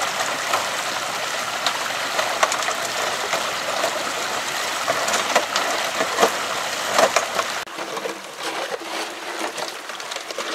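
Muddy water gushing steadily out of the end of a Gold Hog Mini highbanker sluice onto creek gravel, a continuous splashing rush with small knocks mixed in. About three-quarters of the way through it cuts off abruptly to a quieter background with a few light clicks.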